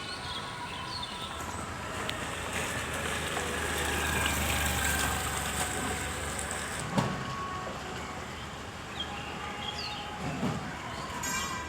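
Street traffic on a road: a motor vehicle passes, its rumble swelling about four to six seconds in, with a sharp knock at about seven seconds and a few short high chirps.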